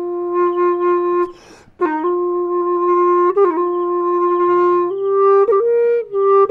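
Bamboo flute (sáo) playing a slow melody of long held notes joined by short slides, with a brief break about a second and a half in.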